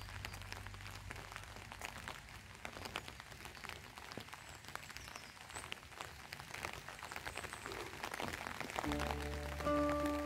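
Light rain falling: a soft even hiss with many small drop ticks. Background music comes in near the end.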